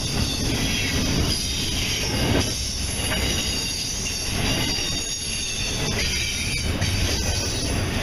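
Double-stack container freight train rolling past close by: a steady rumble of steel wheels on the rail with occasional clicks and high-pitched wheel squeal.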